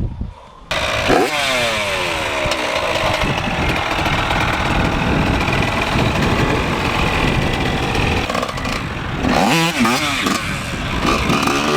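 Freshly rebuilt Yamaha YZ85 85 cc two-stroke single kick-started: it catches less than a second in and runs loud and buzzy, its revs dropping just after it fires, then held up, with the throttle blipped up and down near the end.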